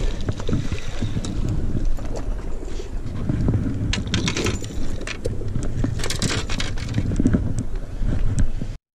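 Wind buffeting a body-worn camera's microphone as a steady low rumble, with scattered scuffs and clicks of shoes and hands on rock. The sound cuts off abruptly near the end.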